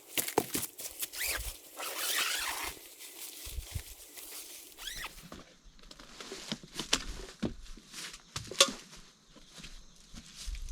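Footsteps and rustling in leaf litter and twigs, with scattered crunches and snaps and a longer rustle about two seconds in.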